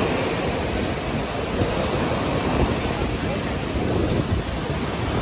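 Sea surf washing onto the beach in a steady rush, with wind buffeting the microphone as a rough low rumble.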